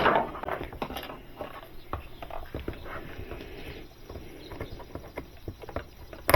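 Light handling noise: scattered soft clicks and rustles at an uneven pace.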